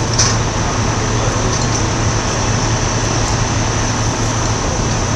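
Fire engine's engine running steadily: a constant low rumble under a loud, even hiss.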